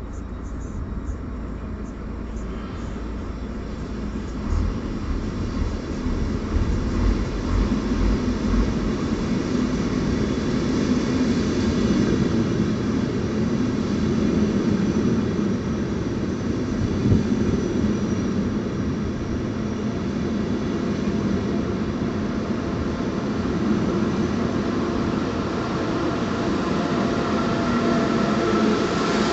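Koleje Mazowieckie double-deck push-pull passenger train with an electric locomotive at the rear, approaching and then rolling past close by. The rumble of wheels on rail grows over the first several seconds and then holds steady as the coaches and finally the locomotive go by.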